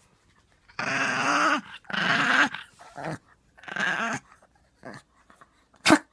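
A chihuahua growling in a string of rough bursts, the longest nearly a second, while guarding its bone against being taken. One short, sharp burst comes near the end.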